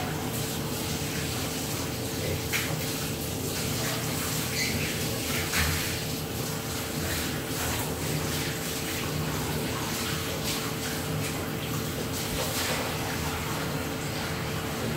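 A steady rushing hiss with a faint steady hum under it, and now and then soft rubbing as a towel is worked over a wet, curly-coated dog.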